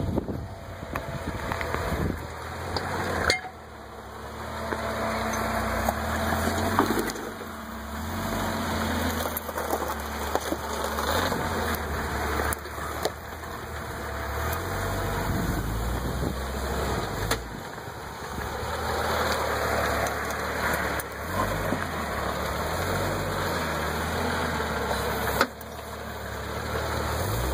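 Jeep Cherokee XJ engine running at low revs as it crawls over rock ledges. It breaks off and resumes abruptly about three seconds in and again near the end.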